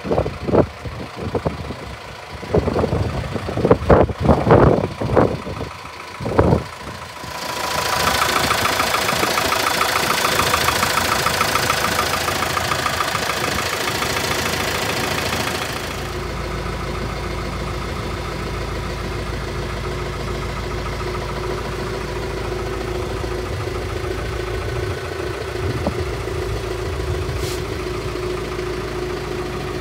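Farm tractor's diesel engine idling. Irregular loud knocks fill the first six seconds. About seven seconds in, the engine grows loud and hissy, heard up close at the engine bay, and about sixteen seconds in it settles to a steadier, deeper hum, heard from inside the cab.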